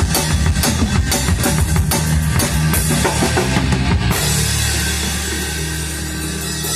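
Rock band of electric bass, drum kit and electric guitar playing, the drums hitting hard until about four seconds in. Then the drums stop and a held chord rings on, slowly fading.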